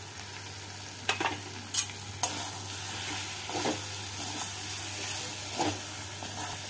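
Boneless chicken in a thick masala gravy sizzling in a metal kadai while a flat steel spatula stirs it, scraping and tapping against the pan several times.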